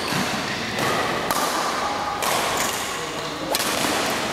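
Badminton rally: rackets striking the shuttlecock about five times, each a sharp crack spaced roughly a second apart or less, over a steady hiss of background hall noise.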